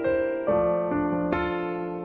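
Slow piano music: held chords, with a new chord struck about half a second in and another past the middle.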